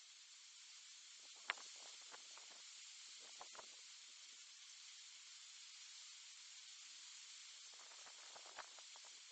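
Near silence: a steady faint hiss of outdoor background noise with a few scattered light clicks, the sharpest about one and a half seconds in.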